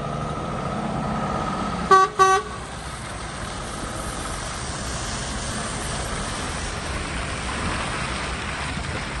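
DAF XF106 460 tractor unit's horn giving two short toots about two seconds in, over the lorry's engine running and its tyres hissing on the wet yard as it drives up and turns.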